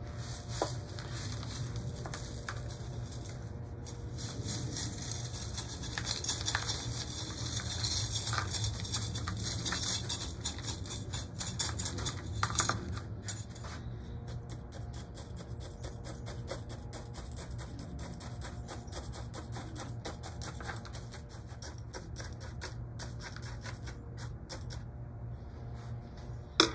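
Small grains of bonsai soil pattering and rattling as they are scooped and worked into a pot around a tree's roots, in rapid clusters of small clicks, busiest in the first half, with one sharp click near the end.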